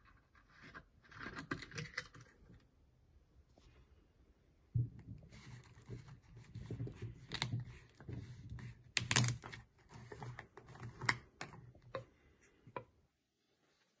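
Hands handling a pole-saw chainsaw attachment and a plastic oil bottle: scattered clicks, knocks and scraping of plastic and metal parts, with a sharp knock about five seconds in and the loudest clicks around nine seconds.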